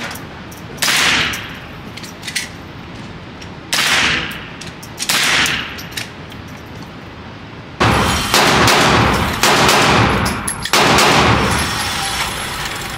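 Gunfire at a shooting range: single shots with an echoing tail about a second, four and five seconds in, then several seconds of denser, overlapping shooting from about eight seconds in.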